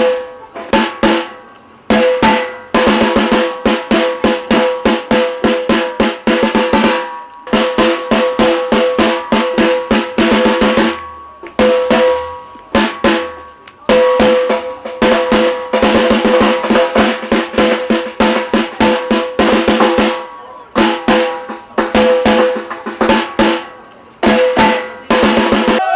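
Snare drums playing fast beats and rolls in dense runs, breaking off for a moment several times before starting again.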